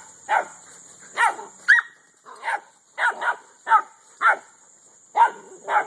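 A puppy barking in short, sharp barks, about ten at an uneven pace, with one higher-pitched yip about two seconds in.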